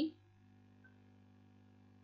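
The tail of a spoken word, then a pause with only a faint, steady low hum: room tone.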